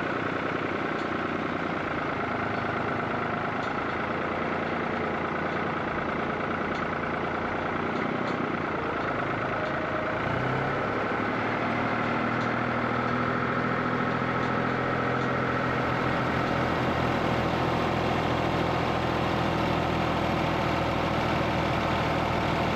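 A tractor engine running steadily. Its note changes about ten seconds in, and it runs a little louder after that.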